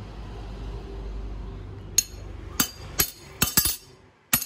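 A low, steady rumble for about two seconds, then about six sharp, ringing clinks of metal striking metal at irregular spacing.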